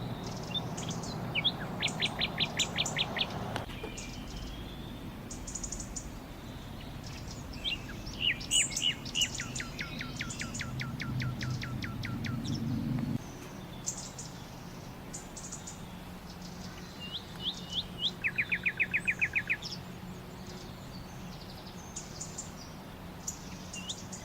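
Backyard songbirds singing: several fast runs of short, evenly spaced high notes, near the start, in the middle and past the two-thirds mark, with scattered chirps between, over a steady low background hum.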